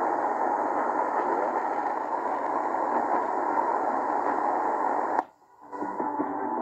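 Medium-wave static hissing from the XHDATA D-808 radio's loudspeaker, tuned to 1530 kHz with no clear station. About five seconds in the sound cuts out for half a second as the radio steps to 1521 kHz, then a station's audio comes back under the noise.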